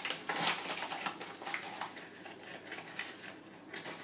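Cardboard box of cornstarch being handled while its powder is added to a bowl of batter: a run of crisp rustles and taps, loudest in the first second or so, then fainter.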